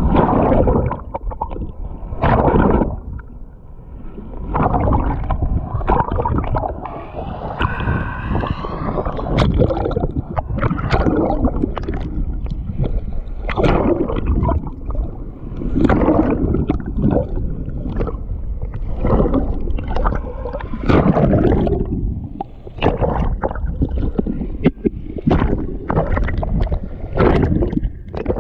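River water gurgling and sloshing around a GoPro held at or under the surface, heard muffled, in uneven surges every second or two with short crackles and knocks against the camera.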